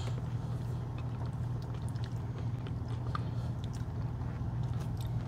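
Close-miked chewing with faint scattered mouth and fork clicks, over a steady low hum inside a truck cab.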